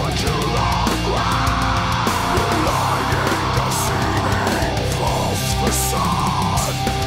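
Heavy metal instrumental passage: distorted electric guitars and drums, with a lead line of gliding, bent notes.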